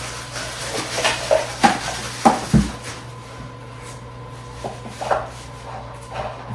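Clinks and knocks of sofa legs and their hardware being handled and fitted to the sofa frame, with a dull thump about two and a half seconds in, then a few lighter clicks.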